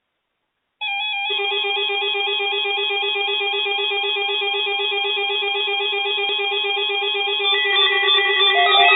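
Several weather alert radio receivers sounding their electronic alarms at once, triggered by the NOAA Weather Radio weekly test broadcast: steady warbling beeps at several pitches overlapping. The alarms start suddenly about a second in, and another joins about seven seconds in, making the sound louder.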